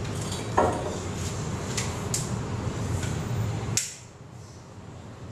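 Glass beer bottles being handled and set down on a countertop, giving a few sharp clinks and knocks. Under them runs a steady low rumble that cuts off suddenly about four seconds in.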